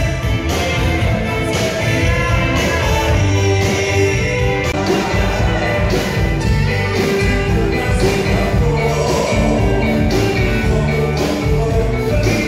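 Live band playing amplified dance music with a singer, electric guitars and drums, to a steady beat.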